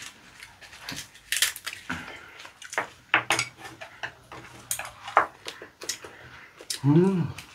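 Eating at the table: scattered light clicks and taps of a wooden spoon and chopsticks against ceramic bowls and an earthenware pot, with chewing and the handling of leafy lettuce and perilla wraps. A short hummed voice sound near the end is the loudest moment.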